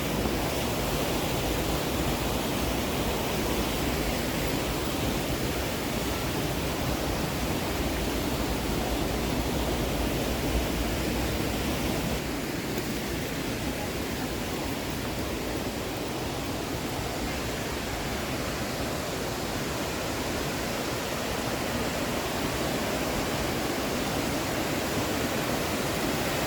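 Waterfall's steady rush of falling water, an even, unbroken roar.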